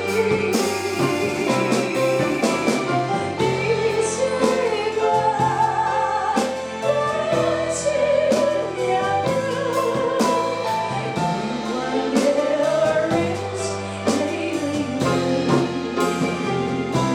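A song: a voice singing a wavering melody over instrumental backing with a steady beat.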